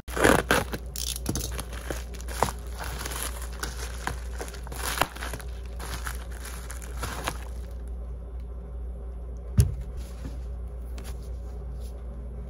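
Plastic bubble mailer being torn open and handled, a dense crinkling rustle for about seven and a half seconds. After that it goes quieter, with one sharp knock near the end.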